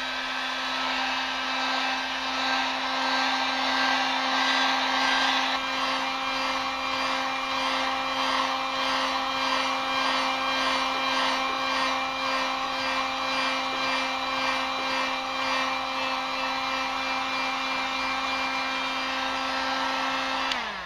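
Electric heat gun blowing hot air onto freshly sprayed black wrinkle-finish paint, a steady motor hum over the rush of its fan. Near the end it is switched off and the motor winds down.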